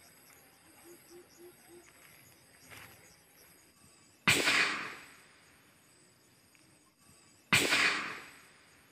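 Two rifle shots about three seconds apart, each a sharp crack that dies away over about half a second.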